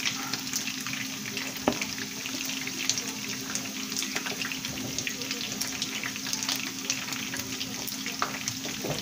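Chicken wings and thighs frying in hot oil in a skillet: a steady sizzle full of fine crackling pops as the cooked pieces are lifted out with tongs.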